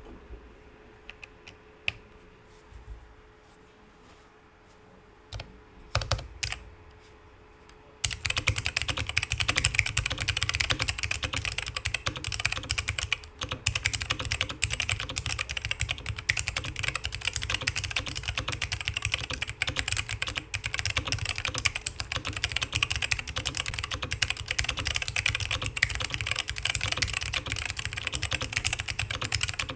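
Custom mechanical keyboard with lubed black Alps switches on a carbon fibre plate in a Geonworks Frog TKL case: a few scattered key presses, then from about eight seconds in, fast continuous typing.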